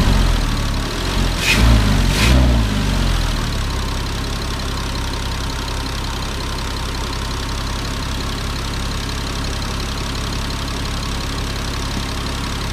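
Porsche Cayman 987 flat-six engine, exposed with its cover off, blipped briefly twice in the first few seconds, each blip bringing a rush of blowing air, then settling into a steady idle with a constant hiss. The owner finds this blowing-air sound abnormal.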